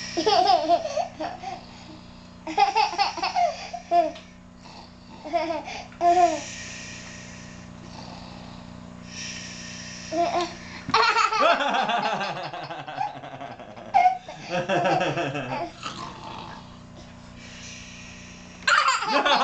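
Young children laughing and giggling in repeated fits, with breathy bursts between them; from about eleven seconds in the laughter runs longer and fuller.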